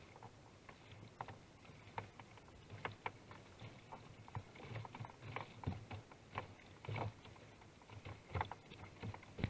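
Kayak paddle strokes in water: faint, irregular small splashes and drips, one or two a second, a little busier in the second half.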